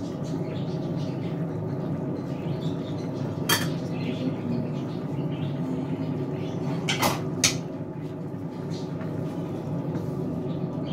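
Stainless steel pot lid clinking against the pot: one sharp clink about a third of the way in, then two more close together past the middle, over a steady low background noise.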